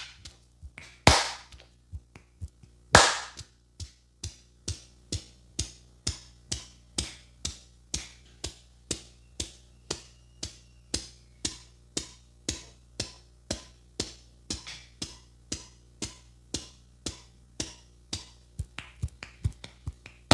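Barber's hands slapping and tapping in a percussive massage, an even run of about three slaps a second. A few louder, sharper slaps come in the first three seconds.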